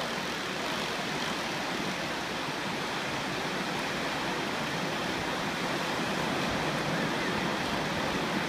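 Surf breaking on a sandy beach: a steady, even rush of waves with no distinct strokes.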